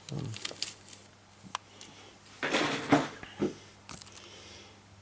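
Small tools and their packaging being handled on a workbench: a few light clicks, a sharp tick about a second and a half in, and a short rustle near the middle.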